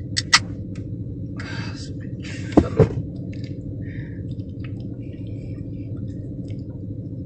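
A beer can's tab clicks open, then a few short noisy sounds as it is drunk from, over a steady low hum in the car cabin.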